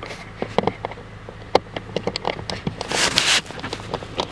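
Screwdriver engaging and turning a Torx self-tapping screw in a plastic footwell trim cover: a run of small irregular clicks and scrapes of metal on plastic, with a brief louder scrape about three seconds in.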